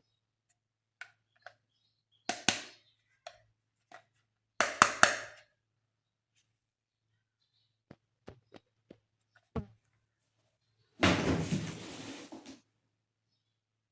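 Toys and their packaging handled by hand: scattered light taps and clicks, two short clattering knocks, and about a second and a half of rustling near the end.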